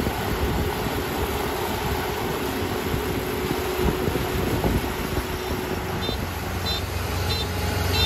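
Kubota ER460 combine harvester running steadily as it cuts rice: an even mechanical drone of engine and threshing works with a held mid-pitched tone and low rumble. From about six seconds in, faint short high pips repeat roughly every half second.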